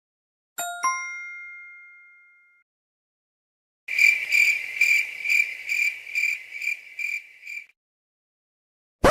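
Two separate sound effects. First a bright bell-like ding, struck twice in quick succession just over half a second in, rings out and fades over about two seconds. After a pause, a high, thin trill pulses about three times a second for nearly four seconds, cricket-like.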